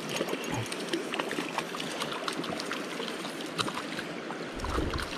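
Shallow creek water running over rocks, with scattered small clicks and splashes as a hooked brook trout is reeled in on a spinning reel. A short low rumble comes shortly before the end.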